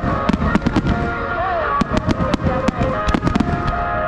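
Fireworks going off in rapid clusters of sharp pops and crackles, over steady music.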